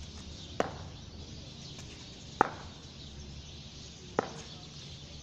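Three sharp knocks, evenly spaced about two seconds apart, over a steady outdoor background.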